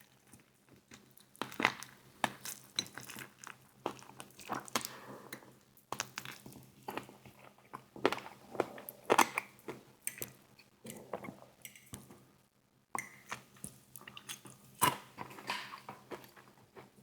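Close-up chewing and biting into fried chicken wings coated in honey barbecue sauce: irregular crisp crunches and wet smacks, with a short pause about three-quarters of the way through.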